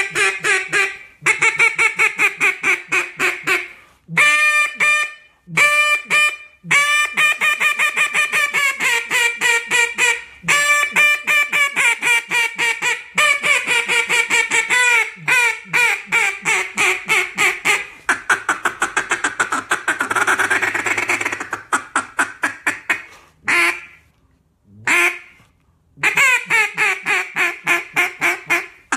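Duck call blown in a competition-style calling routine: strings of loud pitched quacks, several a second, in runs broken by short pauses. About two-thirds of the way through comes a stretch of fast, rougher chatter.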